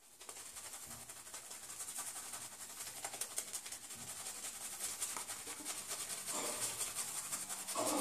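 Omega 11775 boar-bristle shaving brush swirling menthol shaving cream on the face: a rapid scratchy swishing of bristles on skin and lather that grows louder.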